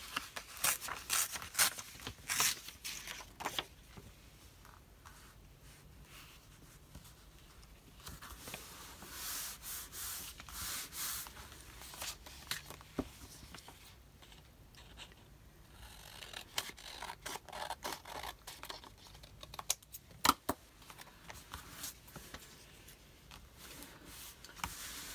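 Paper being handled and worked by hand on a craft desk: a quick run of sharp clicks in the first few seconds, then rustling and scraping of paper on and off.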